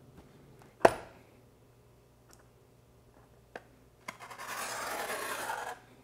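A sharp click about a second in. Near the end, the small built-in blade of an Aulumu G05 phone grip and stand is drawn along a cardboard box's taped seam, making a steady scraping hiss for about two seconds as it slices the box open.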